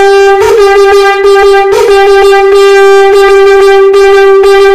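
Conch shell (shankh) blown in one loud, steady note of unchanging pitch, rich in overtones, with quick rhythmic accents tongued into it to play the 'dhin thinak dhin' pattern of a shankhnaad exercise.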